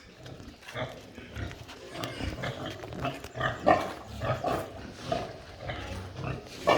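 Pigs vocalising in a group: a dense run of short, irregular, overlapping grunting calls, loudest a little past halfway and again at the end.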